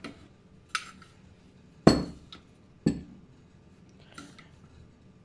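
A metal spoon and kitchen containers clinking while sugar is spooned into a glass mixing bowl of flour: about five short, sharp clinks, the loudest two near the middle, a second apart.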